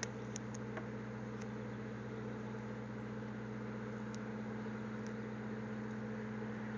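Steady low machine hum, like a motor or engine running, with a few faint clicks over it.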